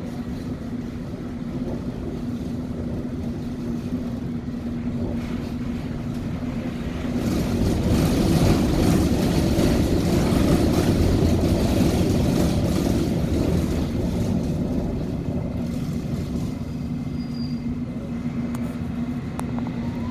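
Interior of a London Underground S7 Stock train running between stations: a steady rumble of the wheels on the track with a constant low hum. The noise grows louder about seven seconds in and eases off again after about six seconds.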